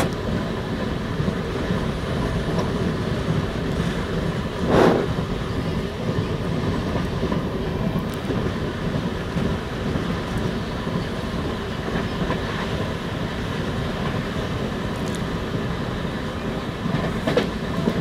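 A passenger train carriage running along the rails, a steady rumble and rattle of wheels and coach heard by an open window. A brief louder noise comes about five seconds in, and a smaller one near the end.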